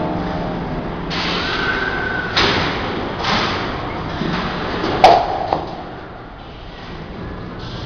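Large kinetic ball-run sculpture (the Energy Machine) running: balls rolling along its metal tracks with a rushing rumble, punctuated by several knocks and thuds, the loudest about five seconds in.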